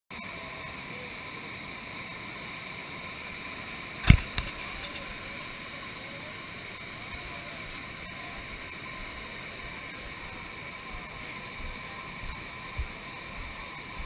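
Steady rush of whitewater rapids, with a single sharp knock about four seconds in.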